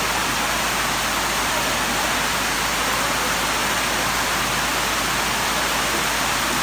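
Heavy rain pouring down steadily on a tent roof, an even hiss.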